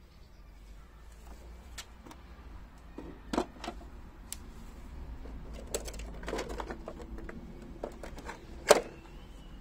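Scattered clicks and knocks of hand tools and a hard plastic Systainer organizer and screwdriver tray being handled, with a cluster a little past the middle and the loudest knock near the end, over a low steady rumble.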